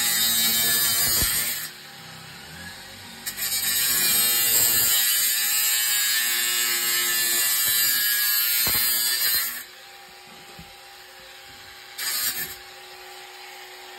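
Angle grinder with a cutting disc cutting through a boiler flue pipe in three runs: a short one at the start, a long one of about six seconds, and a brief burst near the end, stopping in between.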